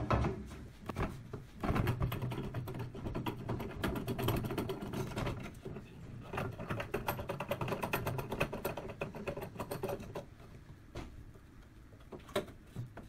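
Fast, dense metallic clicking and rattling from a screen printing press clamp as an aluminium screen frame is fitted into it and the clamp's threaded star knobs are worked. A sharp knock comes right at the start, and the clatter thins to a few separate clicks near the end.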